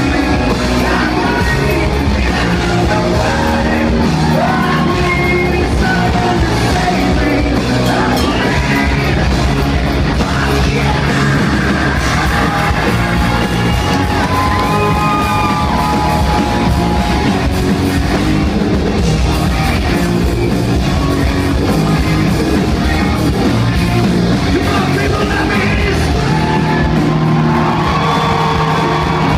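Live rock band playing loud, with the lead singer singing into a microphone over the band, bass guitar included.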